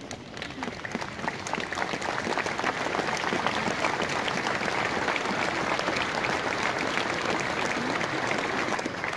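Crowd applauding, swelling over the first couple of seconds, holding steady, then easing off near the end.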